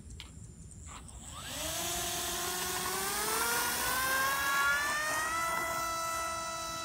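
Motor and propeller of a small remote-control model airplane spooling up for its takeoff run: a whine that rises in pitch from about a second and a half in, then holds steady at full throttle.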